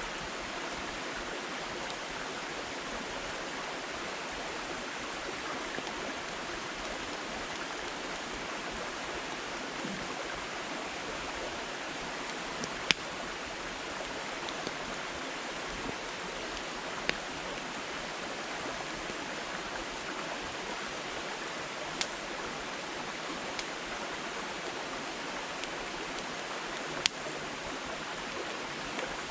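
Wood campfire burning with a steady hiss of flames and a handful of sharp, scattered pops and crackles from the firewood.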